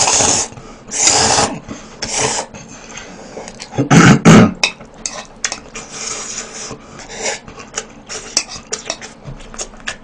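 A person noisily slurping instant ramen noodles from a bowl, in three long slurps over the first couple of seconds and a loud one about four seconds in, with chopsticks clicking against the bowl between them.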